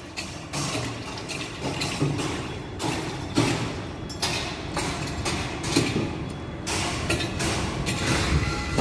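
Construction site noise: machinery running with irregular knocks and bangs, about one a second.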